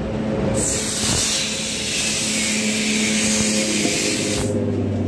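Compressed air hissing steadily out of a 40-litre stainless foam tank's valve for about four seconds, starting about half a second in and cutting off sharply. A faint steady low hum runs underneath.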